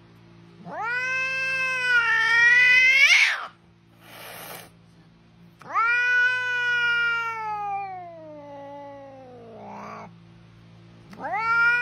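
Cat yowling in long drawn-out meows. The first call bends upward at its end about three seconds in; after a short breathy noise, a second call slides slowly downward, and a third starts near the end.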